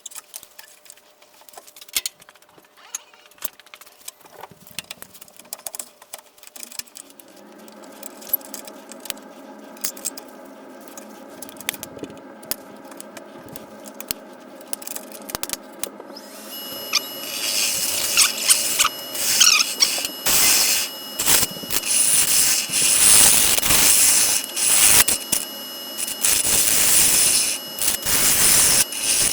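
Scattered small clicks and knocks, then a wood lathe running with a steady hum from about seven seconds in. From about seventeen seconds a tool works against the spinning maple bowl: a loud scraping noise with a thin high-pitched squeal over it.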